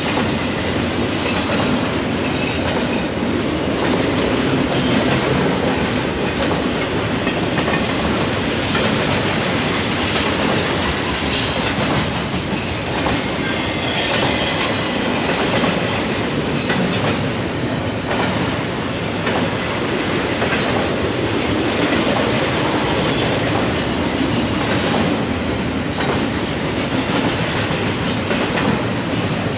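Freight train rolling past, its steel wheels clacking over the rail joints over a continuous loud rumble.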